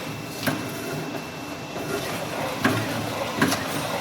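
Hydraulic round-duct elbow machine running as it forms a sheet-metal elbow section: a steady mechanical rattle with sharp metal clanks about half a second in and twice more near the end.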